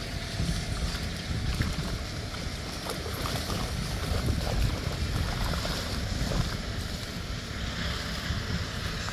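Wind buffeting the microphone, with water splashing and sloshing as a cast net full of fish is dragged through shallow water to the bank.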